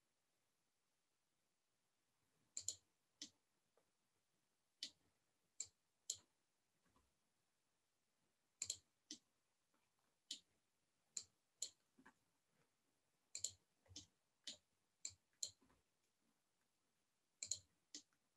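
Computer mouse clicking: about twenty short, sharp clicks at irregular spacing, some in quick pairs, with near silence between them.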